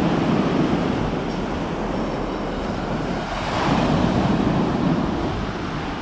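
Sea waves breaking and washing up a pebble beach, surging louder twice: once at the start and again about three and a half seconds in.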